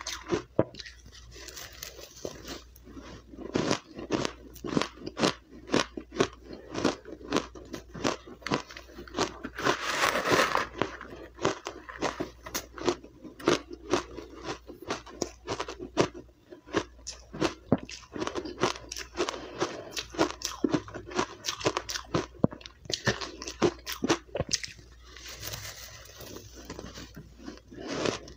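A person biting and chewing powdery, refrozen crushed ice, with many sharp crunches in quick, irregular succession.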